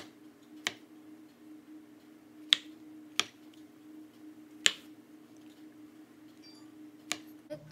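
Chef's knife slicing button mushrooms, the blade knocking sharply on a wooden cutting board several times at irregular intervals, over a steady low hum.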